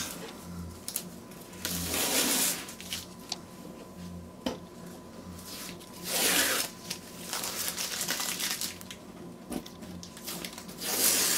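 Masking tape being peeled off the edges of a watercolour sheet, in several rasping pulls with quieter tearing between.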